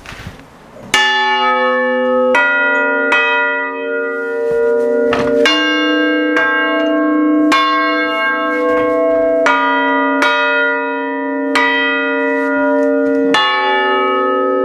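Three dead-hung church bells struck one after another by the hammers of an Ellacombe chiming apparatus, starting about a second in and coming roughly every second. Each strike rings on and overlaps the next.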